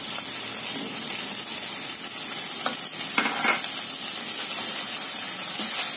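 Sabudana khichdi sizzling in a pan on the stove while a wooden spatula stirs and scrapes through it, with a couple of louder strokes about halfway through.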